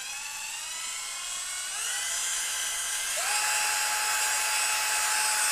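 Xtra-Power 12-volt cordless drill with two-speed gearbox, its motor and gears running free with no load, making a steady whine. About two seconds in the whine rises in pitch and grows louder, and about a second later a new steady tone comes in on top.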